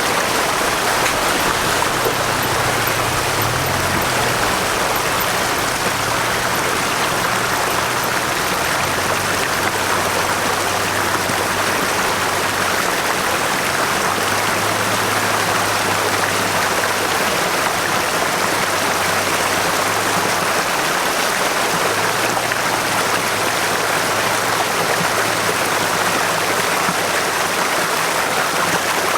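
Creek water rushing steadily, with a Toyota Tacoma's engine running at low revs underneath, its low hum stepping up and down in pitch now and then.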